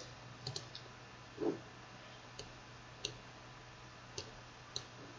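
Computer mouse clicking: about half a dozen short, sharp clicks spread unevenly, some in quick pairs, over a faint steady low hum. A short, soft low thump about a second and a half in is the loudest sound.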